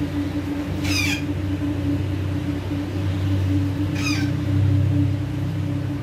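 Rose-ringed (ringneck) parakeet giving two short, harsh squawks about three seconds apart, over a steady low hum.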